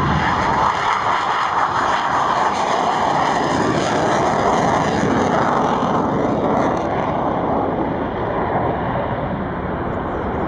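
Saab J35J Draken's Volvo RM6C afterburning turbojet at full power on takeoff and climb-out: a continuous loud jet roar that eases slightly near the end as the fighter climbs away.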